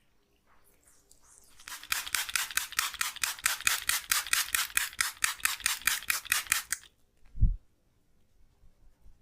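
Hands slapping or tapping rapidly and evenly on skin in a massage, about five or six strokes a second for some five seconds, followed by a single low thump.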